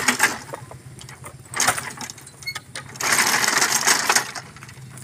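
Oil palm fruit bunches being pried off a wooden ox cart with a long pole, scraping over the cart boards and tumbling onto the gravel road. The crackling, rattling noise comes in three bursts: at the start, about a second and a half in, and a longer one from about three seconds in.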